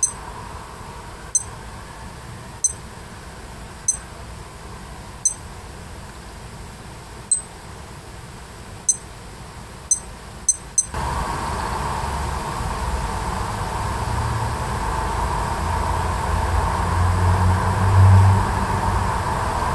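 Casio WS-1200H digital watch beeping at each button press as it is stepped through its modes: about ten short, high beeps at uneven intervals over the first eleven seconds. After that a steady background noise with a low hum takes over and swells near the end.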